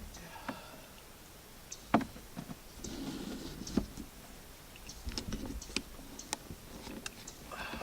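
Scattered light clicks and knocks of a freshly landed fish and tackle being handled in a canoe, with sharper knocks about two seconds in and again near four and six seconds.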